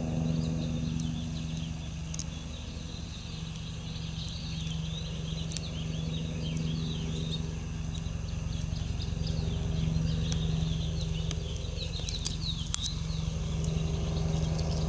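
Outdoor ambience: a steady low hum with many short, high chirps over it, and a few faint clicks.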